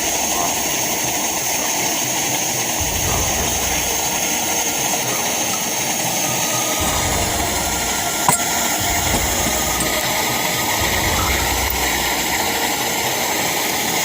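Coleman 533 dual-fuel camp stove burner running with a steady rushing hiss, burning off old fuel while its flame is still yellow. A single sharp tick is heard about eight seconds in.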